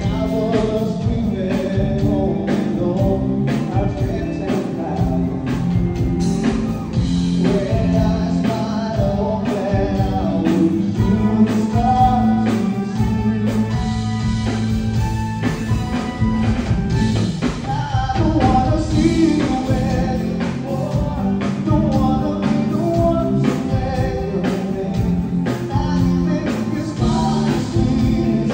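Live band playing a rock and roll song: a singer over electric guitars, bass, keyboard and drums, with a steady beat.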